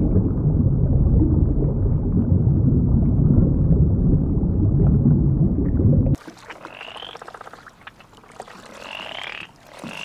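Steady low underwater rumble that cuts off abruptly about six seconds in. Then, much quieter, frog calls: a few short pulsed trills with a thin, high edge, about two seconds apart.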